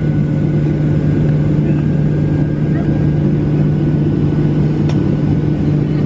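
Jet airliner taxiing, heard from inside the cabin: the engines' steady low hum and rumble with a few faint higher tones over it.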